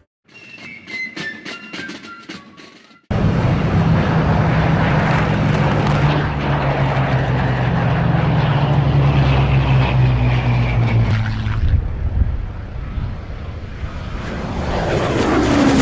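A short bit of music, then about three seconds in an abrupt cut to a Hawker Hurricane's Rolls-Royce Merlin V12 piston engine running loudly and steadily with its propeller. The engine sound dips, grows louder again toward the end, and its pitch falls as it passes.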